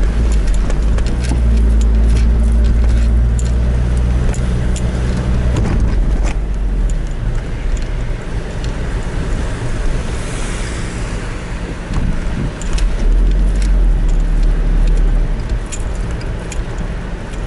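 Car driving on wet beach sand, heard from inside the cabin: a steady engine and tyre rumble with scattered clicks and ticks, and a short hiss about ten seconds in.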